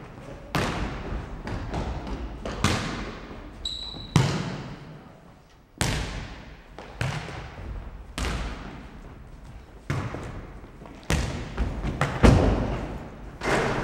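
Futnet ball being kicked and bouncing on a sports hall's wooden floor during a rally: about ten sharp thuds, one every second or so, each followed by the hall's echo.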